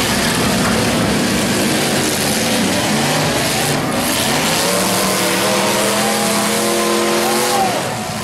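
Several demolition derby cars' engines revving hard together, their pitches rising and falling over each other.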